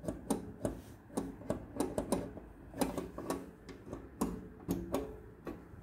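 Push-buttons on an old, rusty curtain ('tabs') control panel being pressed over and over: irregular clicks and taps, a couple each second.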